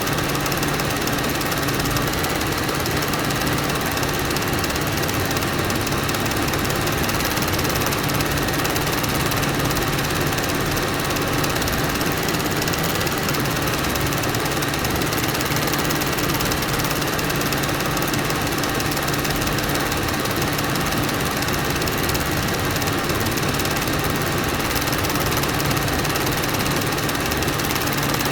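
Film projector running steadily: a fast, even mechanical clatter from the film transport, with a constant low hum underneath.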